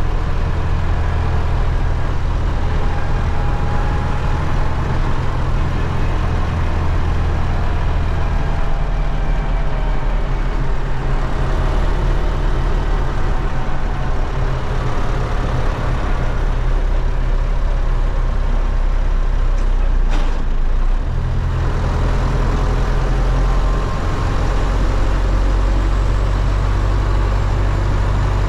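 MTZ-80 tractor's D-243 four-cylinder diesel running on the move. The engine note shifts a couple of times, and there is a brief knock about twenty seconds in.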